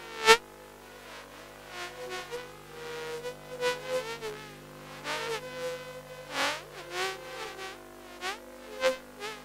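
Electronic sound-art composition built from electric toothbrush buzzing made to evoke bees: a steady drone of layered held tones with short buzzing swells coming and going, some swooping in pitch. A sharp, loud hit comes about a third of a second in.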